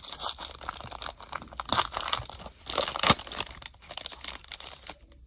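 Foil trading card pack wrapper being torn open and crinkled by hand, in irregular crackling bursts, loudest about two and three seconds in.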